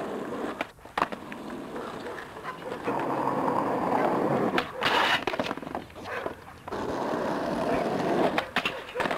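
Skateboard wheels rolling on rough asphalt, with sharp clacks and scrapes of the board about a second in, around five seconds in, and again near the end.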